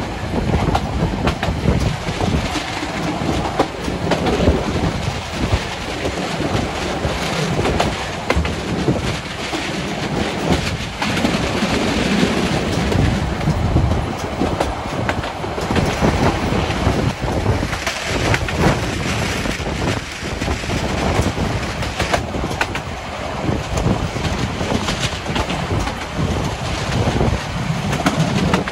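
Train running along the track, with a steady rumble and the wheels clacking over rail joints, and a faint wheel squeal now and then.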